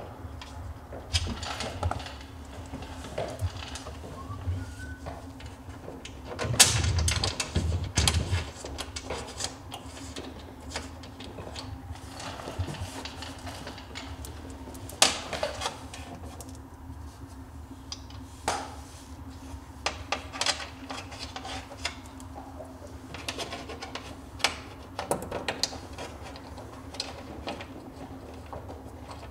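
Metal bolts and bumper hardware clicking and clattering as bolts are set by hand into a snowmobile's rear tunnel, with a louder clattering rumble for about a second and a half around seven seconds in and a sharp click about halfway through. A steady low hum runs underneath.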